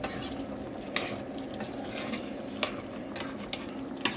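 A metal spoon stirring pork adobo in a metal pan, clinking against the pan several times at irregular moments over a faint steady hiss.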